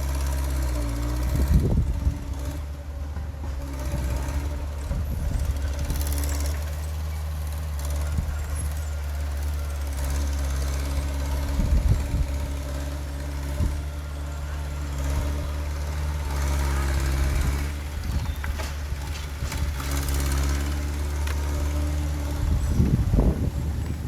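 A heavy diesel engine of earthmoving machinery running steadily under load, with a few loud knocks and clanks from the machine working soil.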